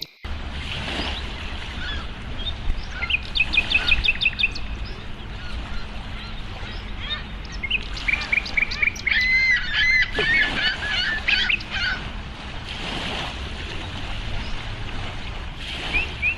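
Small birds chirping in short runs of quick, high repeated notes, several times over, above a steady low rumble.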